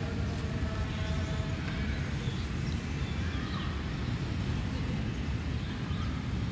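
Steady low outdoor rumble with a few faint, short bird chirps over it.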